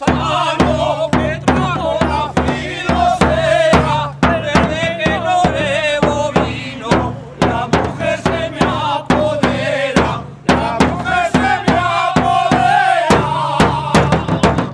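A group of men singing a traditional San Fabián song together over the steady beat of a large bass drum struck with sticks, with a brief break in the singing about ten seconds in.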